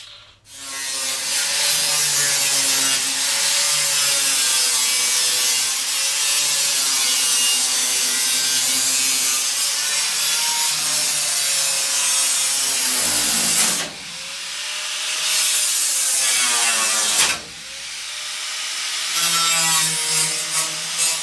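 Angle grinder with a cutoff wheel cutting through the sheet steel of a pickup truck box, its motor pitch wavering as it loads up. It stops briefly twice in the second half and starts cutting again.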